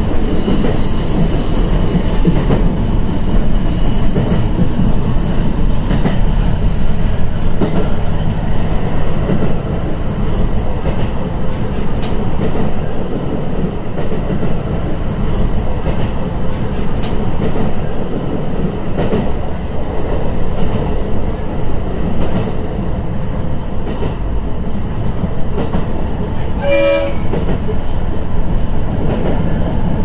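Inside a JR East KiHa E120 diesel railcar on the move: a steady rumble of engine and wheels, with occasional rail-joint clicks. A short pitched tone sounds near the end.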